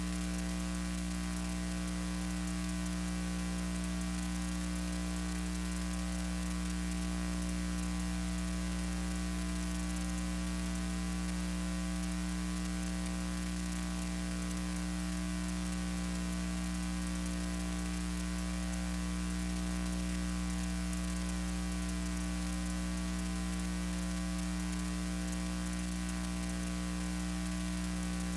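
Steady electrical hum with hiss, unchanging throughout: mains hum on an otherwise empty soundtrack from an archival film transfer.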